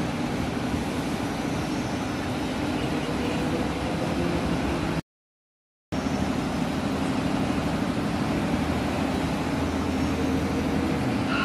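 Industrial laundry machinery running with a steady hum and a low drone. The sound cuts out completely for about a second near the middle.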